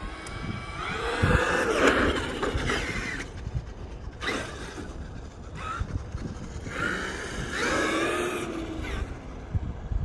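Traxxas X-Maxx RC monster truck's brushless electric motor whining up in pitch and back down in two passes, one about a second in and another about seven seconds in. A low rumbling noise runs underneath.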